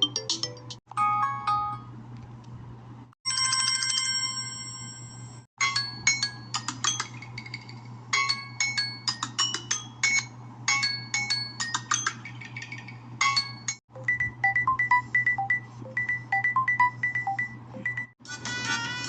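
Samsung phone ringtones played one after another, each a short electronic melody of high, bell-like notes. Five change in turn, each cut off by a brief silence: the tail of one tune, a short melody, a held chiming chord, a long plinking melody, a repeated-note tune, then the start of the next. A low steady hum runs underneath.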